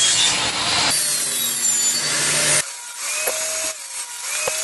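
Table saw cutting half-inch plywood for mitred box sides: the blade's loud steady rasp through the wood over the motor's hum, breaking off abruptly about two and a half seconds in. A quieter stretch with a sharp click near the end follows.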